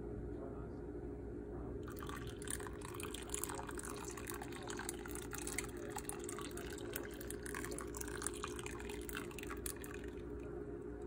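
Distilled white vinegar poured in a stream from a glass measuring cup into a pot of hot milk: a crackly splashing trickle starting about two seconds in and stopping near the end, over a steady low hum. The acid is being added to curdle the milk for ricotta.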